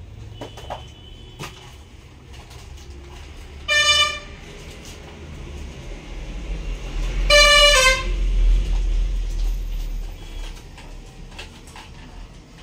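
Vehicle horns honking: a short toot about four seconds in and a louder, longer honk about seven and a half seconds in, with a low rumble of passing traffic swelling around the second honk. A few faint clicks can be heard in between.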